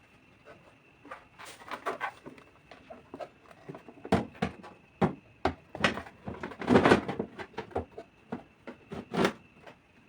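Food containers and produce being handled and set down while a refrigerator is organised: an irregular run of light knocks, clacks and rustles, busiest and loudest about seven seconds in.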